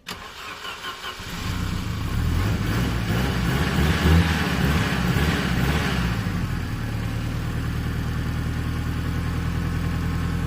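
A Volvo 740's 16-valve four-cylinder engine cranks briefly on the starter, catches, revs up about four seconds in, then settles into a steady idle. It starts and runs with its ignition coil leads just reconnected in swapped cylinder order.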